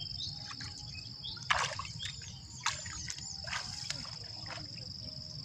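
Bare feet wading through shallow water in a flooded rice paddy: four splashing steps about a second apart, the first the loudest. A steady high insect drone runs underneath.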